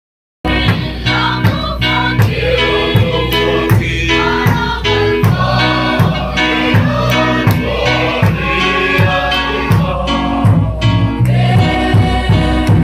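A large group singing a Mizo hymn together, a congregation-style choir, over a steady drumbeat. The singing and drum cut in abruptly about half a second in.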